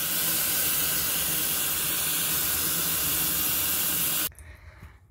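Tap water running from a faucet into a sink basin, a steady hiss and splash that stops suddenly about four seconds in.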